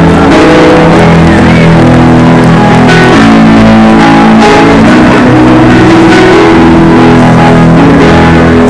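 Loud music led by guitar, steady and dense throughout.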